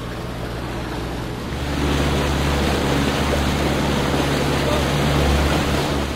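A motorboat engine running with a steady low drone, growing louder about a second and a half in and dropping back near the end, over wind and water noise.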